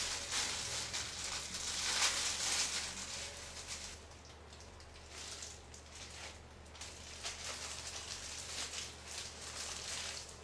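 Soft rustling of hair and thin disposable plastic gloves as long hair is gathered up. After about four seconds it gives way to quieter, irregular brushing strokes as hair dye is worked into the hair with a tint brush.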